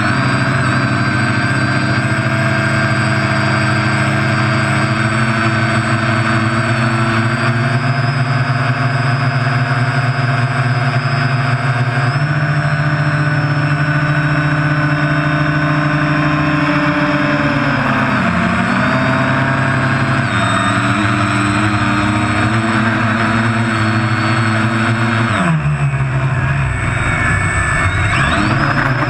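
Quadcopter's electric motors and propellers whining steadily, recorded close up by the GoPro mounted on it as it climbs. The pitch dips and comes back up a few times as the throttle changes.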